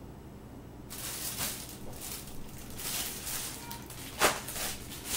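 Food packaging and containers rustling and being handled as a refrigerator shelf is cleared out. Two sharp knocks come near the end.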